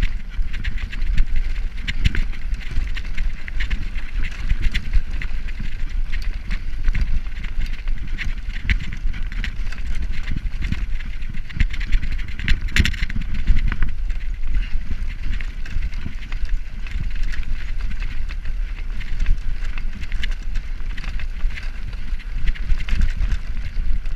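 Road bike rattling and clattering over rough cobblestones, picked up through a camera mounted on the handlebars: a constant rush of jolting knocks over a low rumble, with one harder jolt about thirteen seconds in.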